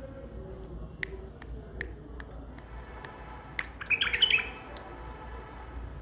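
White-eared bulbul calling: a few short sharp notes about every half second, then a louder burst of quick song notes about four seconds in.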